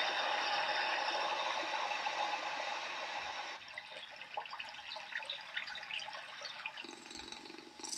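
Recorded ambient water sound from a white noise app: a steady rushing of water that cuts off about three and a half seconds in, followed by a quieter, different recording of scattered light drips and ticks.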